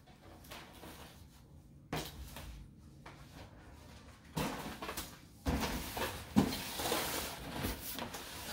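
A large cardboard box holding a countertop air fryer oven being carried, set down on a kitchen counter and shifted into place. There is a knock about two seconds in, then cardboard rustling and scraping from about halfway, with a sharp thump a little after six seconds as the box lands.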